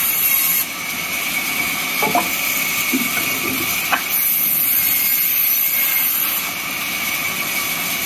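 Large band saw running and cutting through a log, a loud steady whine of the blade and its motor. A high tone in it drops away under a second in, returns about four seconds in and fades again after six seconds, with a few light knocks in between.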